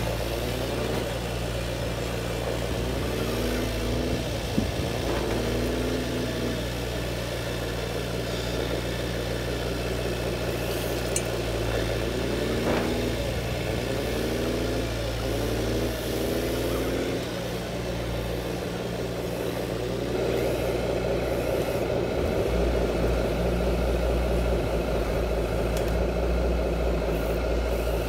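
A radio-controlled model excavator and dump truck running: a steady simulated diesel idle from a sound module, with short whines that rise and fall again and again as the models move. The drone gets a little louder about two-thirds of the way through.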